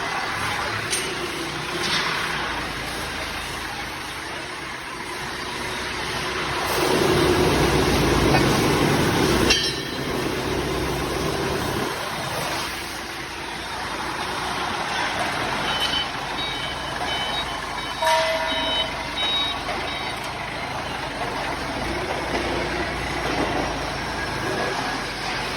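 Steady machinery noise on a factory floor. It swells louder for about three seconds, starting some seven seconds in, and a run of short high beeps comes a little past the middle.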